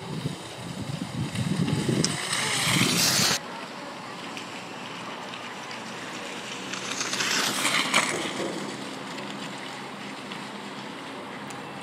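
Cross-country skis swishing and scraping on a groomed snow track, growing louder as a skier glides up close, then cutting off abruptly about three and a half seconds in. A quieter outdoor hiss follows, swelling again for a couple of seconds near the middle.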